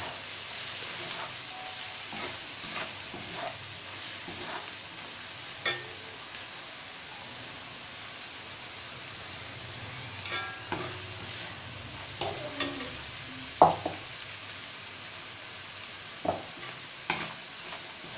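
Vegetables and turmeric sizzling in hot oil in a metal kadhai, stirred with a perforated metal spatula. The spatula scrapes and clinks against the pan now and then, with the loudest clink a little past the middle.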